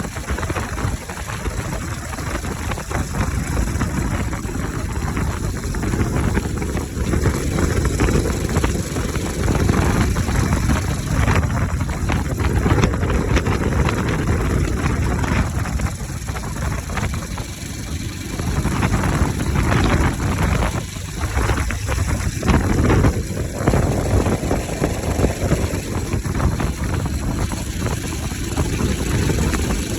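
Bajaj Pulsar RS 200's single-cylinder engine running with its air filter removed, its deep note swelling and easing several times with the throttle.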